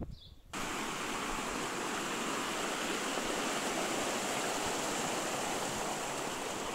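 Mountain stream rushing over rocks, a steady, even sound of running water that starts abruptly about half a second in.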